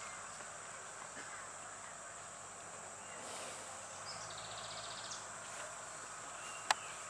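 Faint outdoor ambience with a thin, steady, high insect drone, a brief buzzing insect trill about three seconds in, and a single sharp click near the end.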